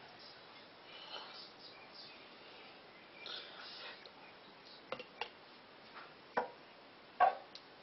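A few light knocks and clinks of a plastic canning funnel being lifted and set onto glass jars, four in all, the loudest near the end. Faint peeping of ducklings is heard in the background.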